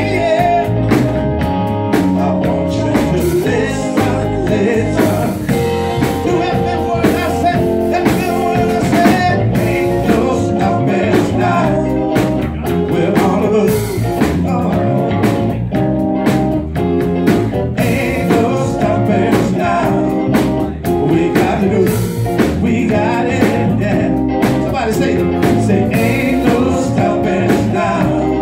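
Live band playing amplified music: a male singer over electric bass guitar, electric guitar and a drum kit with cymbals.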